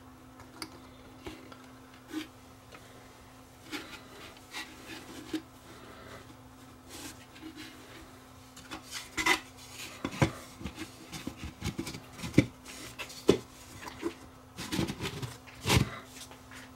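Hands rustling and rubbing fibre-fill batting as it is packed into a wooden bookshelf-speaker cabinet, with scattered clicks and knocks of the cabinet and its back panel being handled. The knocks come thickest in the second half. A faint steady hum runs underneath.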